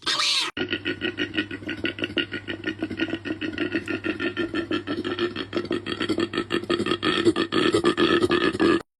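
An animal's vocal sound: a short call, then a long, rapid pulsing call of about eight pulses a second on a steady pitch, which cuts off suddenly just before the end.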